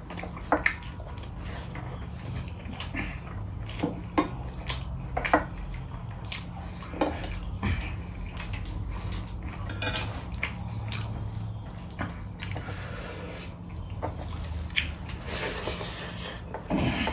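Eating by hand from a steel plate: scattered clicks and scrapes of fingers and a steel spoon against the plate and bowl, mixed with wet chewing mouth sounds.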